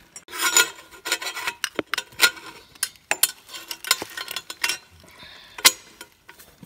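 Hands working a Delkevic stainless exhaust header and its flange into place at a motorcycle's cylinder head: irregular metal scraping and rubbing with scattered clicks, the sharpest near the end.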